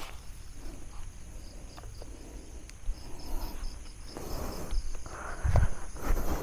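Night insects such as crickets chirping steadily, one in a quick pulsing rhythm. Rustling builds from about four seconds in, with a dull thump about five and a half seconds in.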